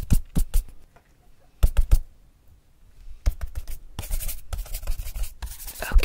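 Quick, scratchy strokes of a drawing tool on sketchpad paper, close to the microphone: a few strokes, two sharp ones, a short pause, then a fast flurry of scratching near the end that finishes in a sharp knock.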